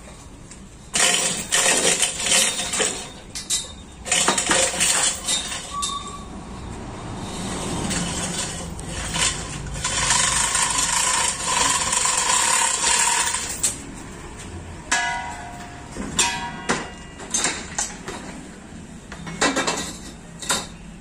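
Hoist chains rattling and clinking, with metal knocks, as a heavy diesel engine hanging from a chain hoist is pushed and shifted by hand. There are bursts of clanking, a longer stretch of rattling with a thin ringing tone midway, and a few short metal squeaks near the end.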